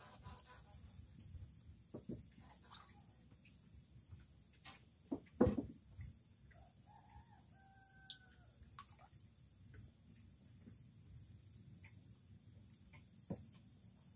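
Scattered knocks and clicks of a fishing rod and tackle being handled on a bamboo raft while a small fish is hooked and landed, with one sharp knock about five seconds in. A faint distant call rises and falls between about six and nine seconds in.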